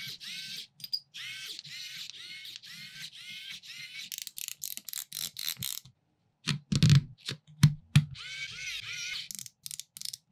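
Pen-style electric screwdriver whirring in short, rapidly repeated bursts as it drives the small screws of the model V8's timing pulleys. A few heavy knocks of the metal engine being handled come about seven seconds in, then a second run of short whirring bursts.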